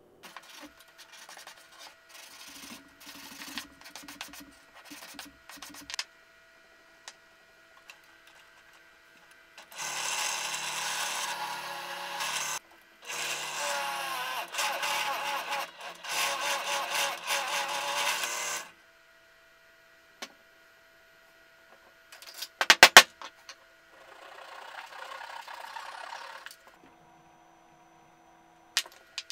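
Benchtop drill press running and boring into a stack of laminated plywood, a steady motor and cutting sound that lasts about nine seconds with a short break partway through. Before it there are quieter scattered handling knocks, and after it a loud sharp clack and then a short scraping noise.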